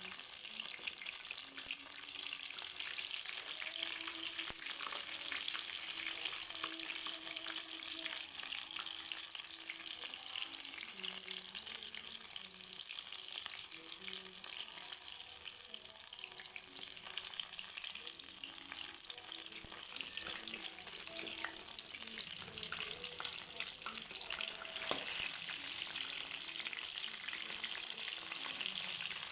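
Breaded chicken pieces deep-frying in hot oil, a steady, dense crackle and sizzle of bubbling oil. About three-quarters of the way through there is a single sharp click.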